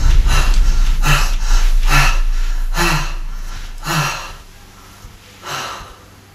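A man gasping and panting heavily, with loud ragged breaths about once a second that grow fainter, and a last weaker gasp after a pause. A low rumble underneath fades away over the first few seconds.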